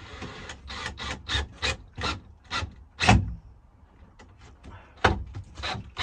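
Cordless drill-driver driving a screw at an angle into a wooden frame, in a run of short bursts about three a second. The loudest burst comes about three seconds in, then two more follow near the end.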